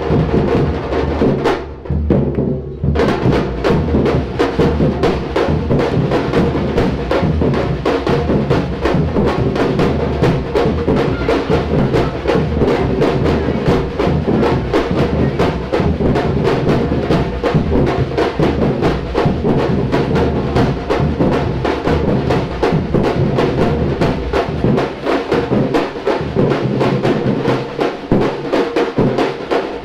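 An all-women samba-reggae drum band playing live: deep surdo bass drums keep a steady beat under snare and high drums. The high drums drop out briefly about two seconds in, then come back with dense, fast strokes.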